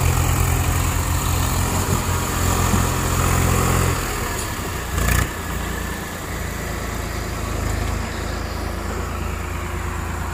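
Swaraj tractor diesel engines running hard, strained as one tractor pulls the other from the mud. About four seconds in, the engine note drops and settles to a quieter, steady run, and a moment later there is a short knock.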